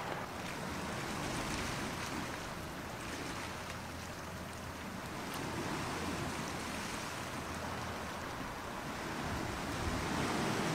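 Sea waves washing onto the shore, a steady rush that swells and eases every few seconds.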